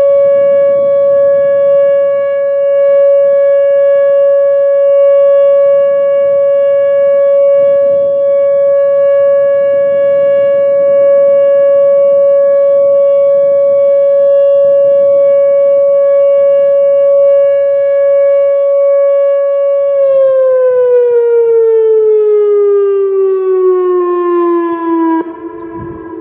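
Whelen WPS 2905 electronic outdoor warning siren sounding its steady 560 Hz alert tone. About twenty seconds in, the alert ends and the pitch glides down as the siren winds down, and the loudness drops sharply near the end.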